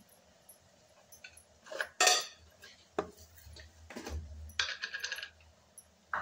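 Kitchen clatter of a spoon against steel cookware and a plastic jar being handled: a string of separate clinks and knocks, the loudest about two seconds in, and a quick rattle of clinks near the five-second mark.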